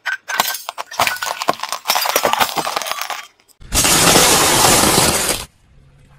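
Car tyre crushing light-bulb-shaped glass containers full of small coloured balls: a run of sharp cracks and clinks for about three seconds as the glass breaks. After a short gap, a loud, dense crunch lasting about two seconds as the tyre flattens a pile of puffed crispy snacks.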